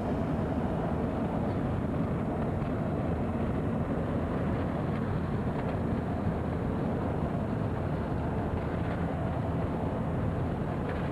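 Steady road and engine noise inside the cabin of a car driving on a motorway.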